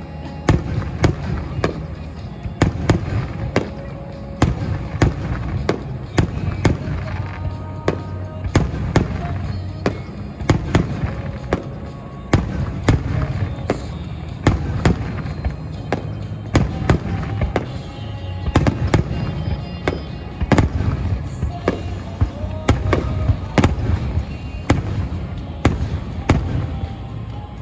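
Aerial fireworks bursting in quick succession during a fireworks finale: sharp bangs, about one or more a second, over a continuous deep rumble of overlapping booms.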